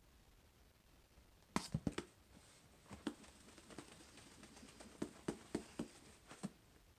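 A small handheld whiteboard knocks several times as it is handled and set down. A dry-erase marker then writes on it in a run of light taps and short scratchy strokes.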